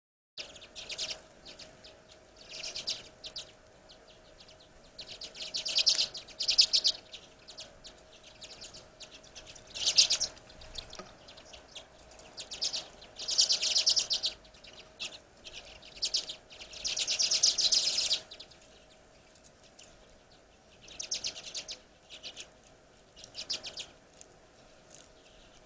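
Small songbirds at a feeder giving bursts of rapid, chattering twitters, about ten separate bursts of half a second to a second each, the longest near the end.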